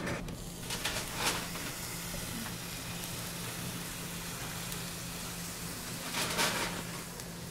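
Batter and fillings sizzling in hot fish-shaped bungeoppang molds, a steady hiss broken by a few short clicks, about a second in and again near the end.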